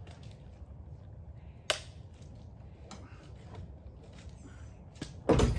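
A sharp knock about two seconds in, then a heavy clunk near the end as an outboard motor is worked loose and lifted off a boat's transom.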